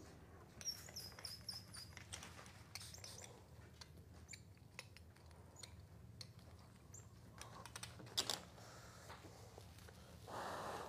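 Quiet room with scattered faint clicks and taps, a brief run of high chirping squeaks about a second in, and one sharper click a little after eight seconds.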